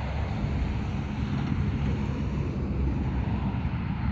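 Wind buffeting the microphone: a steady low rumble with a broad hiss above it.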